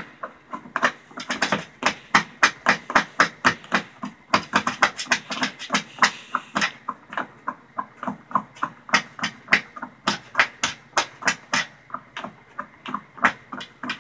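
Small terrier breathing hard in quick, rhythmic breaths, about four a second, as it noses after its ball.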